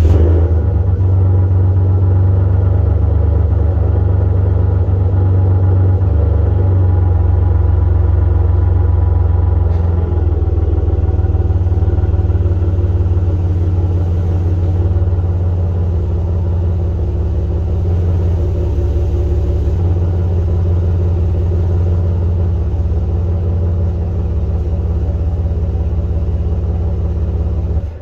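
Ford F-150 pickup engine idling steadily, heard close to the exhaust at the rear of the truck. It shuts off near the end.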